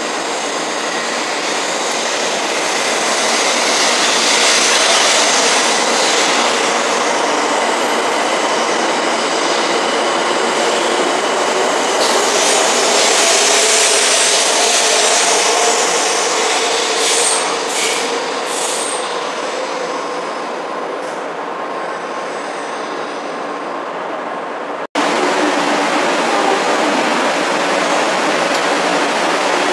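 A 700 series Hikari Rail Star shinkansen pulls out along the platform: a steady rush of wheel and air noise, with a motor whine that rises in pitch as it gathers speed. It cuts off abruptly about 25 seconds in, and the running noise of another shinkansen follows.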